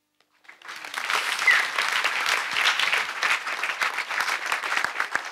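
Audience applauding, a dense patter of many hands clapping that swells up about half a second in and thins out near the end.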